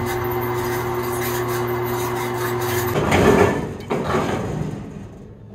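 Hollymatic 3000 mixer-grinder running empty, its electric motor giving a steady hum as the mixing paddle shaft turns in the stainless hopper. About three seconds in, a louder rattling clatter takes over, with a sharp knock a little later, then the sound fades away.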